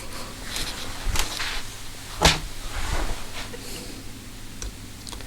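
A few small clicks and taps as screws are fitted into a motorcycle carburettor with a screwdriver, the sharpest tap about two seconds in.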